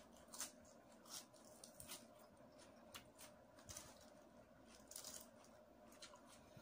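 Faint eating sounds: a person chewing a mouthful of rice, longganisa and lettuce, with scattered soft crunches and clicks. Near the end, crisp lettuce leaves rustle as they are picked up by hand.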